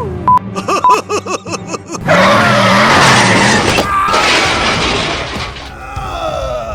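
Added cartoon-style sound effects: a fast string of short bouncing tones, then a loud crash with a shattering noise about two seconds in, fading away over the next few seconds.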